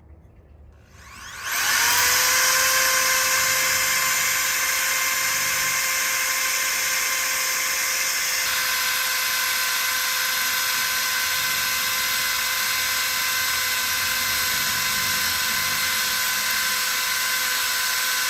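Electric drill spinning up about a second and a half in, then running at steady high speed with a steady whine as a 3/16-inch masonry bit bores a hole into brick.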